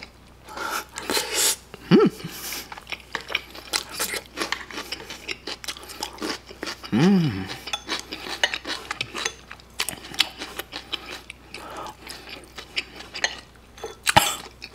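Eating at close range: chopsticks clicking and scraping against a ceramic dish, with wet chewing of sauced fried pork with kimchi and cheese. Two short pitched sounds stand out, one about 2 s in and a longer rising-and-falling one about 7 s in, and a sharp click comes near the end.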